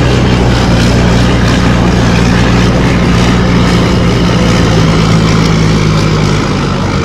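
Engine of a tracked paddy tractor running steadily under load as it works a rotary tiller through wet mud, a loud even drone that eases slightly near the end.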